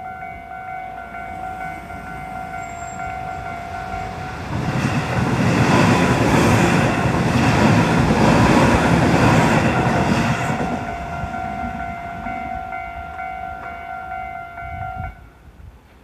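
Japanese level-crossing warning bell ringing steadily as an electric Tobu Noda Line commuter train passes over the crossing. The train's wheels and motors are a loud rush for about six seconds, starting about four and a half seconds in. The bell rings on after the train has passed and stops about a second before the end.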